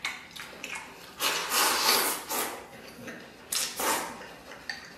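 Close-miked mouth sounds of a man eating red-braised pork belly with rice: wet chewing and lip smacking in irregular bursts. The loudest run is from about a second to two and a half seconds in, with a shorter one a little after three and a half seconds.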